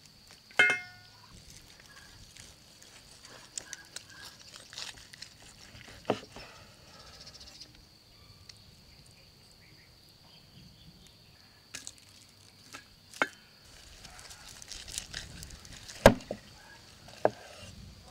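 Meat cleaver knocking through tandoor-roasted beef ribs onto a wooden cutting board: a handful of sharp knocks several seconds apart, with quieter clicks and handling between them. Under a second in comes a single ringing metallic clang, as of a rib set down on a metal platter.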